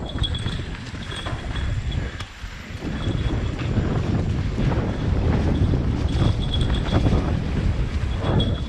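Wind buffeting the microphone as a heavy low rumble, with a faint high chirping tone that comes and goes.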